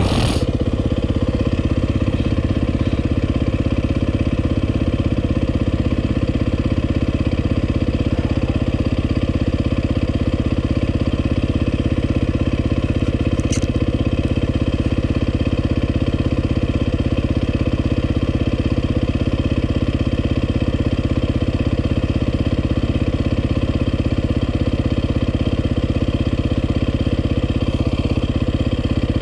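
Dirt bike engine idling steadily, with a brief click about halfway through.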